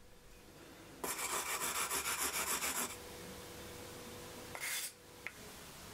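Carbon-fibre frame rubbed with rapid back-and-forth strokes against a rough surface, a loud rasping scrape lasting about two seconds. Afterwards a faint steady hum, a brief scrape and a single click near the end.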